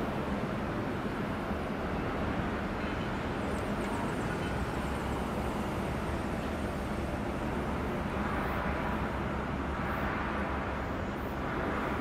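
Steady low rumble of outdoor shipyard background noise with a faint constant hum, with no single distinct machine or event standing out.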